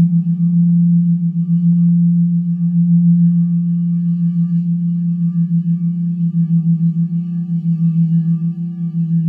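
Crystal singing bowls played with mallets, sustaining one deep tone that pulses rapidly in level, with fainter higher overtones ringing above it. A couple of faint mallet taps come about half a second and two seconds in.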